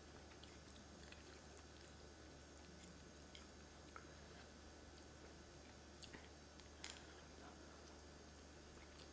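Near silence with faint chewing of noodles and a few soft clicks, about 4, 6 and 7 seconds in, over a low steady hum.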